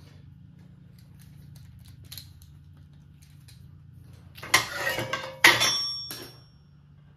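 Old metal hand tools being handled on a workbench: a few faint clicks, then about four and a half seconds in a clatter of steel tools knocking together, with one piece ringing briefly after the second knock. A low steady hum runs underneath.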